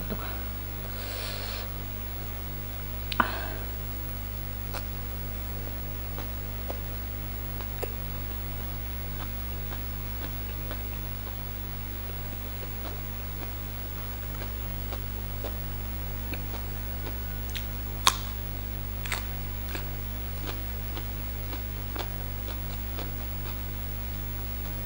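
Quiet eating by hand: soft chewing and the odd small click or tap of food being picked from a wooden board, with two sharper clicks, one about three seconds in and one later, over a steady low hum.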